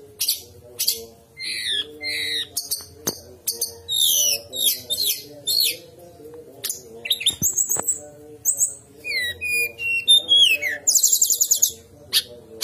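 A songbird singing a fast, varied song of whistled up- and down-slurred notes and chirps, with a rapid buzzy trill near the end.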